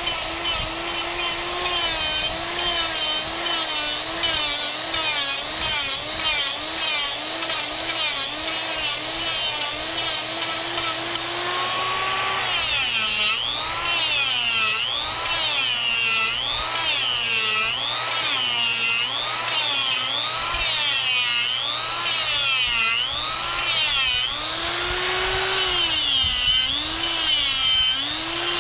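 Harbor Freight Hercules 1/4-inch electric die grinder carving wood: a high motor whine whose pitch sags and recovers over and over as the bit loads up in the wood. Partway through, the dips grow deeper and come about once a second, the motor bogging down a little under the cut.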